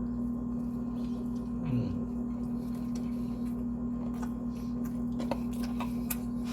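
Mouth and eating noises while a burger is eaten: faint wet clicks and smacks, mostly in the second half, with a short low hum of the voice about two seconds in. A steady electrical hum lies under everything and is the loudest thing throughout.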